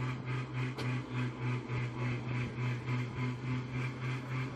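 Rail speeder running: a steady low mechanical hum that swells and fades about three times a second.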